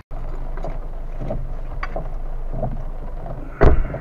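Inside a car cabin in the rain: the engine running steadily with a low hum and the windscreen wipers sweeping, with a few soft knocks. A loud thump comes near the end.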